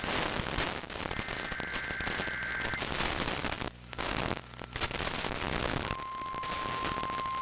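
Crackling static of a weak, noisy weather-radio reception. About a second in comes a short two-tone data warble, the EAS/SAME header. About six seconds in the long steady weather-radio alert tone starts, the signal that a warning is about to be read.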